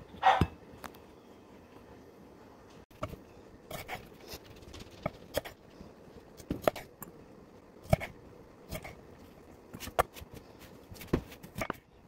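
Chef's knife slicing green tomatoes on an end-grain wooden butcher-block cutting board: irregular sharp knocks as the blade cuts through and strikes the board, about a dozen in all. A brief, louder pitched sound comes right at the start.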